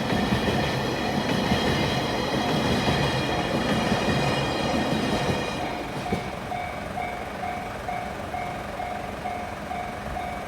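Freight train of tank wagons rolling over a level crossing, a steady rumble with ringing wheel-on-rail noise that fades about six seconds in as the train clears. A Japanese level crossing's electronic warning bell dings two to three times a second throughout, heard plainly once the train has passed.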